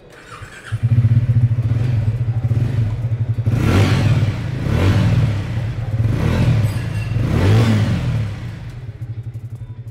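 Triumph Speed 400 T4's 398 cc single-cylinder engine starting up about a second in and idling, then revved in four quick throttle blips, each rising and falling back, before settling to idle.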